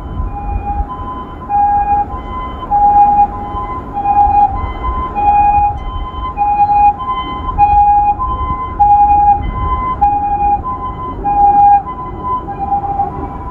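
Japanese ambulance siren sounding its two-tone hi-lo call, a higher and a lower note taking turns about every two-thirds of a second, with a low rumble underneath.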